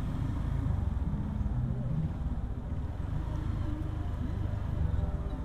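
Honda motorcycle engine running at low road speed as it is ridden, its pitch drifting up and down a little with the throttle.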